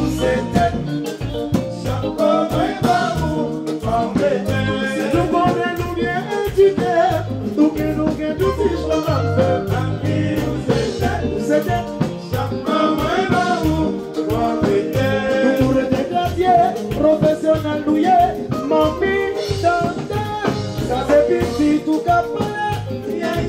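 Live band playing upbeat Latin-Caribbean dance music, with a male singer over keyboard and percussion.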